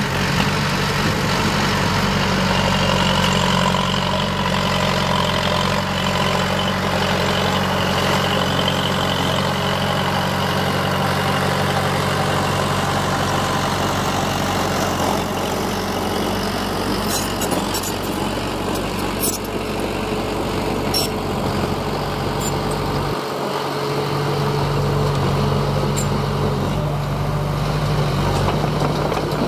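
Heavy diesel engine of earthmoving machinery running steadily, with a brief change in its low note about three-quarters of the way through and a few faint sharp clicks in the second half.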